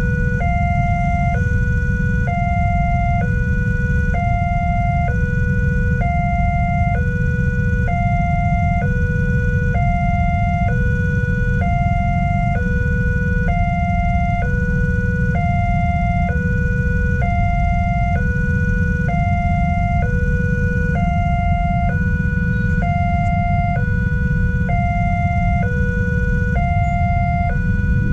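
Railway level-crossing warning siren from a horn loudspeaker on the crossing pole, alternating between a lower and a higher tone about once a second without a break. It signals an approaching train with the barriers closed. Under it runs a steady low rumble.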